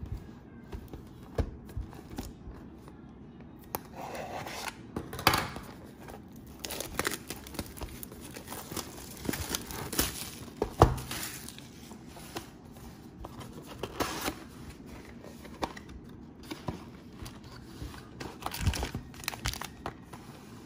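Plastic wrapping on a trading-card box being torn open and crinkled by hand, with irregular rustles and sharp clicks of the packaging being handled. It is sparse for the first few seconds and busier from about four seconds in.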